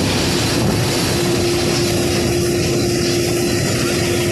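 Jet airliner's engines running loud and steady: an even rushing noise with a steady hum through it.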